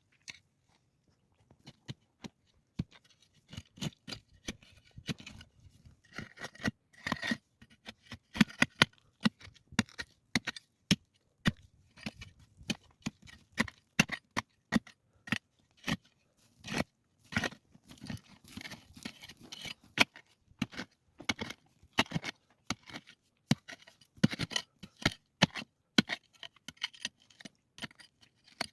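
Irregular sharp knocks and scrapes, at times several a second, from hands-on shelter building work.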